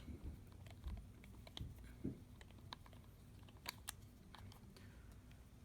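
Faint, scattered light clicks and taps as screws are worked out of the battery cover on the back of a Bluetooth bike lock.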